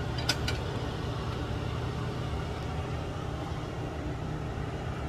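Steady low machine hum with a light click about a third of a second in.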